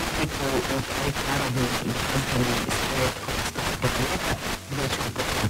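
Weak long-distance FM radio broadcast received by troposcatter: a voice talking, half buried in heavy hiss that flickers as the signal fades in and out.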